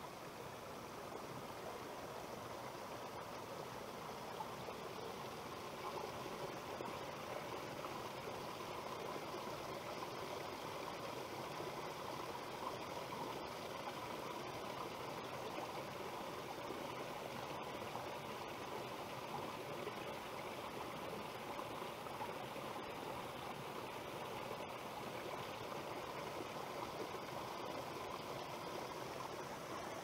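A small rocky mountain stream trickling and splashing over mossy stones: a steady sound of running water, growing a little louder over the first few seconds.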